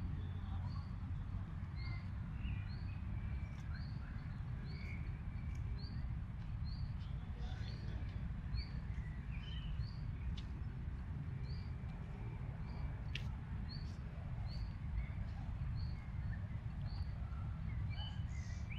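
Outdoor park ambience at dusk: birds chirping, one repeating a short high chirp at an even pace a bit more than once a second, with scattered other calls. Under them runs a steady low rumble.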